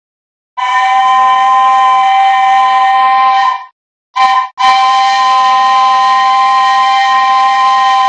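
Small steam locomotive's whistle sounding a steady chord of a few tones: a long blast of about three seconds, a short toot, then another long blast.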